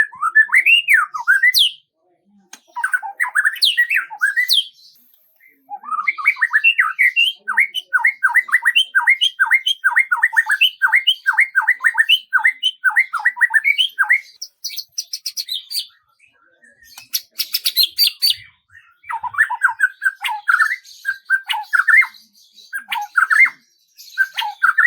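A songbird singing loudly: varied gliding phrases, then a long run of quick repeated notes, about three a second, followed by a stretch of dry clicking and more phrases near the end.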